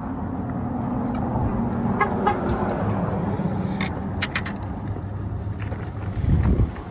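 Boat motor running steadily, with a few sharp clicks and rattles in the middle and a low thump near the end.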